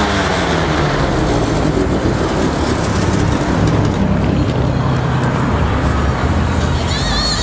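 Engines of classic cars cruising slowly past one after another: a steady low rumble of engines and traffic, with engine notes shifting as each car goes by.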